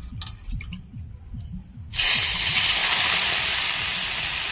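A few light clicks, then about two seconds in a sudden loud, steady rush of water being poured into the pan of sugar to make sugar syrup.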